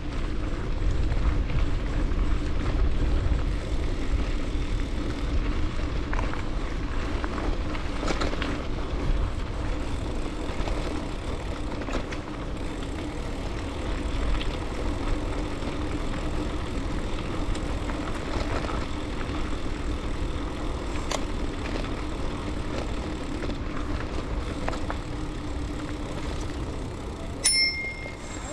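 Mountain bike rolling along a dirt trail: steady tyre noise with a low hum, and wind buffeting the microphone. About a second before the end, one short ring of a handlebar bell.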